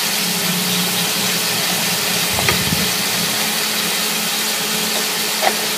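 Pork neck, mushrooms and vegetables sizzling on a hot round grill pan: a steady frying hiss, with a faint tick or two about halfway through.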